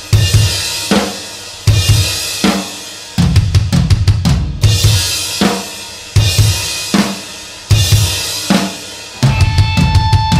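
A drum kit playing alone: heavy bass drum and snare hits with crashing cymbals that ring out, landing about every second and a half, broken twice by fast drum fills, the second one near the end.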